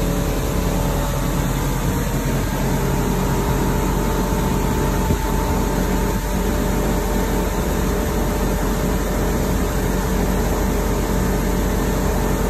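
Bayliner Classic motorboat's engine running steadily at cruising speed, a constant drone over the rush of the churning wake.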